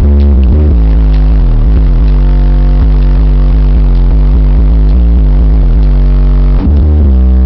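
Bass-heavy music played very loudly through a DC Audio Level 5 subwoofer driven by a Sundown 3500 amplifier, heard from inside the car's cabin. The deep bass notes shift every half second or so, with a brief break about two thirds of the way through.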